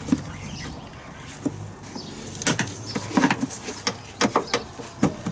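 Plastic engine-bay trim cover being worked loose by hand, its clips giving a scatter of sharp clicks and knocks from about halfway in, several coming in quick pairs.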